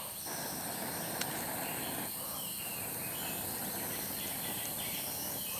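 Steady chorus of forest insects trilling, with a single faint tick a little over a second in.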